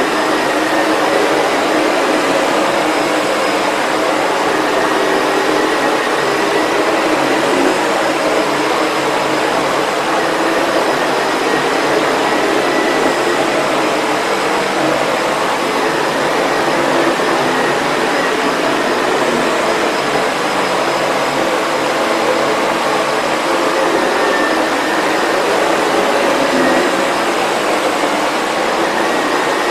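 Sebo Felix upright vacuum cleaner running steadily, its motor and electric powerhead brush roll working through a deep shag rug, with a faint steady whine over the airflow noise.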